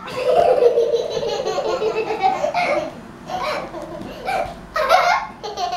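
Young girls laughing, one long run of laughter at the start and then shorter bursts of laughter.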